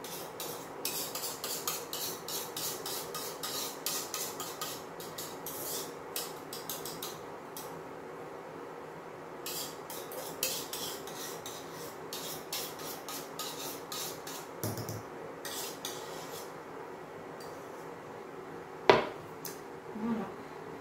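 Utensil scraping thick custard out of a stainless steel saucepan in quick repeated strokes, in two runs, then a sharp clunk near the end as the saucepan is set down on the induction hob.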